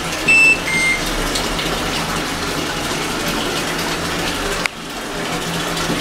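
Water gushing steadily into the drum of a Singer SWM97108X top-load washing machine as it fills. Two short high beeps sound near the start, and a click with a brief drop in the rush comes a little before the end.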